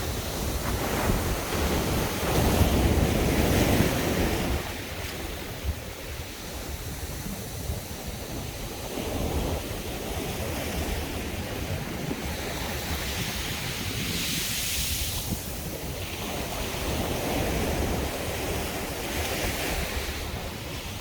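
Sea waves breaking on a beach and washing up the shore, with a heavy surge a few seconds in and hissing washes of foam later on. Wind rumbles on the microphone underneath.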